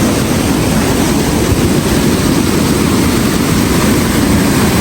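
Steady, loud rush of falling water from a forest waterfall.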